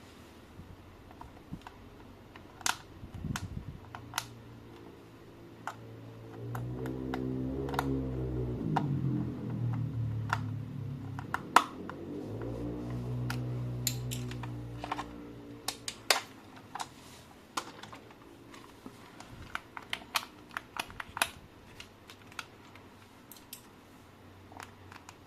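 Irregular light clicks and taps of hard plastic being handled. In the middle a low humming sound with overtones runs for about ten seconds, dipping and rising in pitch.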